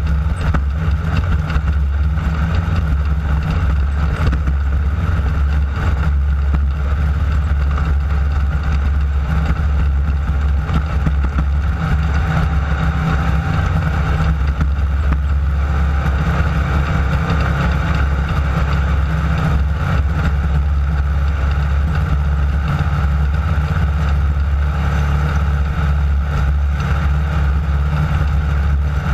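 Class 9 desert race buggy's air-cooled VW engine running hard at a steady, unchanging pitch, heard from on board while driving over desert terrain.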